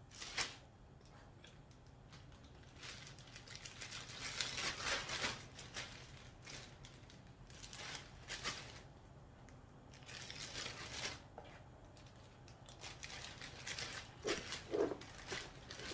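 Plastic zip-lock freezer bag crinkling and rustling in irregular bursts as it is handled and filled with marinated meat and fish, with a sharp click about half a second in.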